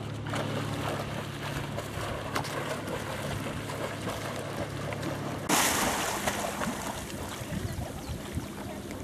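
A vizsla jumping into lake water with one loud splash a little past halfway, then water sloshing as it swims.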